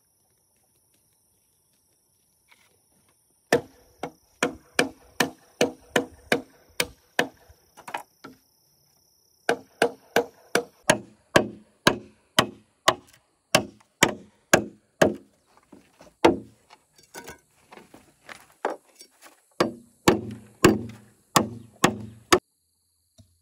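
Machete chopping into a thick green bamboo culm: a long run of sharp, even strokes, about two to three a second, starting a few seconds in, with a short pause near the middle of the first half.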